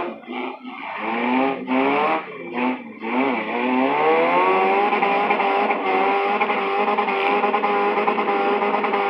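Four- and six-cylinder demolition derby car engines revving hard in short rising bursts. From about three seconds in, one engine is held at high revs in a steady drone.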